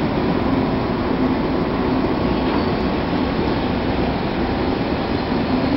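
SNCF 241 P 9 steam-hauled train running steadily, a continuous rumble and rush of rolling noise heard from aboard.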